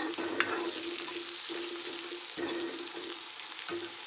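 Sliced onions and spices sizzling in hot mustard oil in a kadhai, stirred with a steel ladle, with a sharp metal clink of the ladle against the pan about half a second in. A steady low hum runs underneath and breaks off briefly three times.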